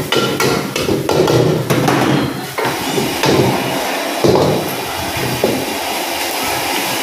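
Metal ladle and spatula scraping and knocking against a wok as fried rice is stir-fried and tossed over a high gas flame, many sharp clanks in quick succession. A steady hiss from the burner and frying runs underneath.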